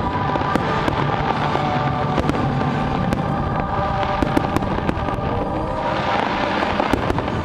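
Fireworks display: a steady stream of bangs and crackling bursts, with music playing underneath as held tones.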